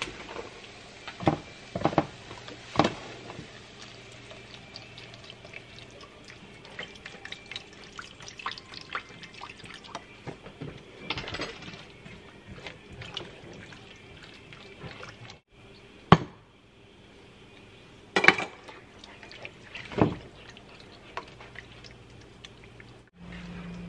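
Diced carrots sizzling in a nonstick skillet while liquid is poured in and stirred. There are small clicks and scrapes of a spatula throughout, and a few sharp knocks against the pan.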